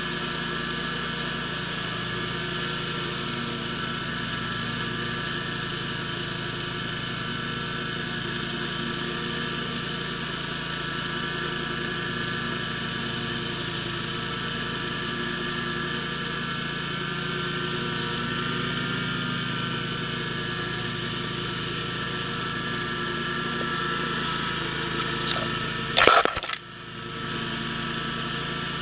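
Zero-turn lawn mower engine running steadily. Near the end a sharp, loud knock cuts in, with a brief drop in the engine sound just after it.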